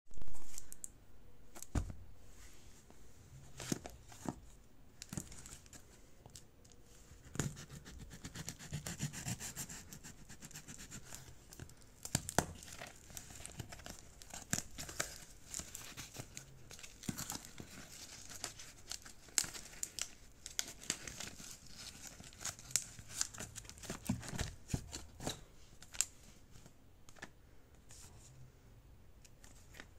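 A cardboard shipping parcel being cut open with a knife and its packing tape torn off, with rasping, crinkling packaging and scattered sharp clicks from handling. There is a loud bump at the very start.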